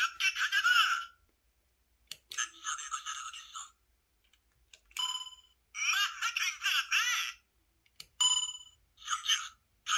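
Electronic sound effects from the built-in speakers of Engine Bot Leo Cheetah and Saber Panther toy cars, set off as the cars are pressed. There are bell-like dings, about five seconds in and again after eight seconds, and several short bursts of chirpy, tinny electronic sound effects.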